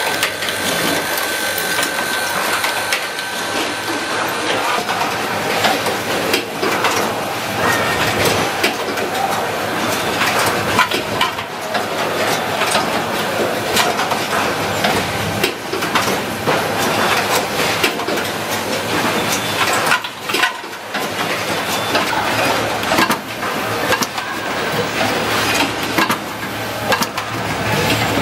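Automatic switch assembly machines running: a dense, steady clatter of many quick mechanical clicks and knocks from the moving stations, over a constant factory hum.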